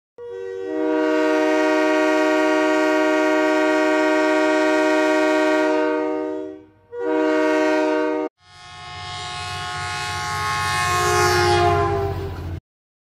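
Locomotive air horns: a long steady chord blast, then a short one of the same chord. Then a different chord horn sounds over a low engine rumble, growing louder, its pitch falling near the end before it cuts off.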